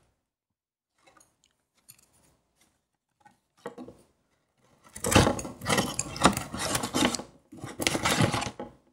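Cardboard takeout chicken box handled close to the microphone: a few faint taps, then loud scraping and crinkling of cardboard in two spells with a short break between them.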